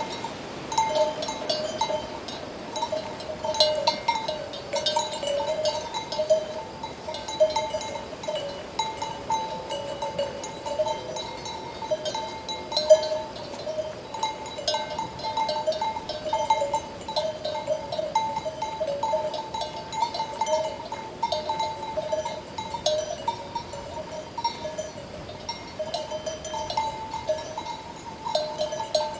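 Neck bells on a flock of sheep and goats clanking irregularly and continuously at two steady pitches, with many small clinks.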